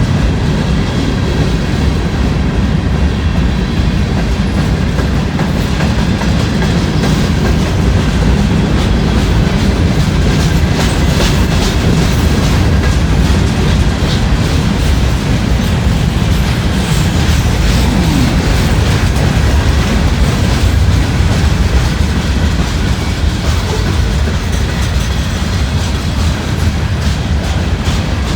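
Freight cars of a long CSX manifest train rolling past: a steady rumble of steel wheels on rail, with a continuing clickety-clack of wheels over the rail joints.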